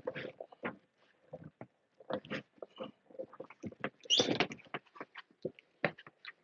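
Irregular clicks, knocks and rubbing from hands working with wire and tools, with a louder scrape about four seconds in.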